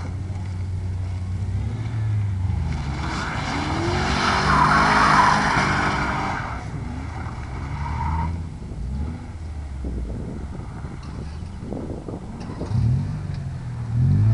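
Sedan's engine revving up and down as it is driven hard through a cone course, with tyres scrubbing and squealing on asphalt, loudest from about three to six and a half seconds in. The engine climbs in pitch again near the end as the car accelerates away.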